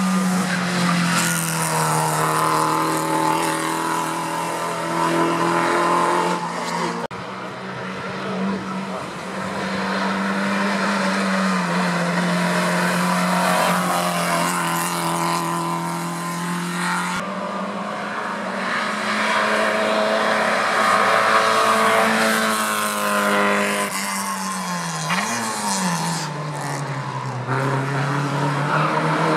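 Zastava Yugo hatchback race car's engine running at high revs, its pitch holding, dropping and climbing again through gear changes and corners. The sound breaks off abruptly twice.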